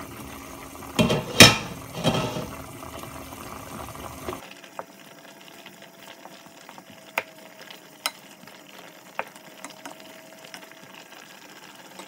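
A pot of oxtail stew simmering in a thick black-bean sauce. Its glass lid is lifted off with a couple of loud knocks about a second in. Then a wooden spoon stirs the bubbling sauce, with a few sharp clicks against the pot.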